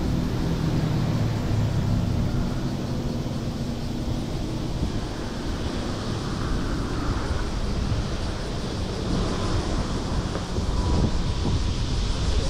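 Road traffic passing on the road alongside: a motor vehicle engine passing and fading over the first few seconds, then steady traffic noise with wind rumbling on the microphone, stronger near the end.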